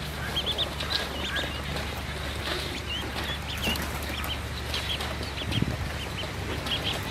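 Ducklings peeping: many short, high chirps in irregular succession. A low thump about five and a half seconds in.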